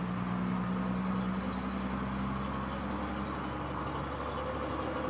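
A heavy engine running steadily with a low hum, most likely the crane's engine holding the load as the locomotive is set down onto the rails; the hum shifts pitch slightly about three seconds in.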